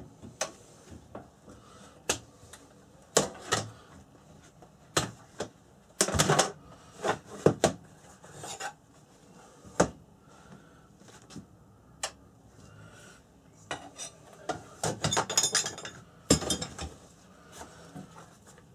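Steel tongs and knife blades clinking and clanking, metal on metal: irregular sharp knocks with two louder clusters of rattling, about six and fifteen seconds in.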